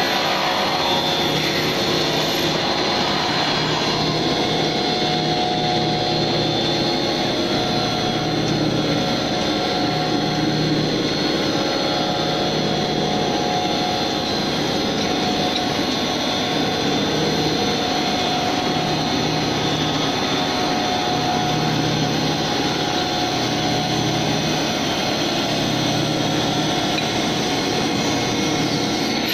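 PVC/ASA corrugated roof tile extrusion line running: a steady machine drone with several steady tones.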